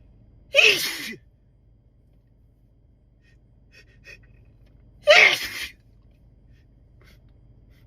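A man sneezing twice, loud wet spray sneezes about four and a half seconds apart, with a couple of faint quick in-breaths before the second.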